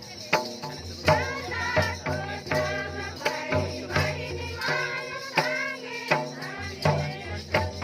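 Music: voices singing a song over a steady drum beat, about one beat every 0.7 seconds, with jingling percussion.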